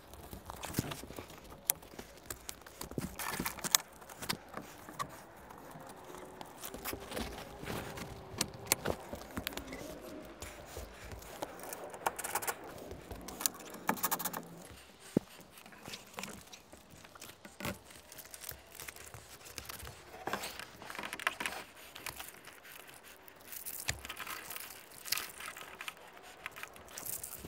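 Scattered light metallic clicks, clinks and scrapes from aluminium solar-panel mounting clamps and rail hardware being handled and locked in place.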